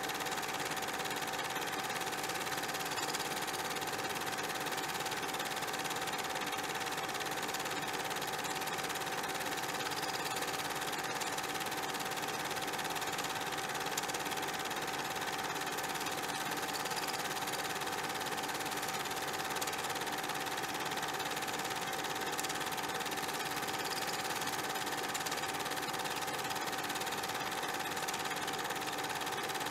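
Steady mechanical hum with one constant tone and a layer of hiss, unchanging throughout, with a few faint clicks.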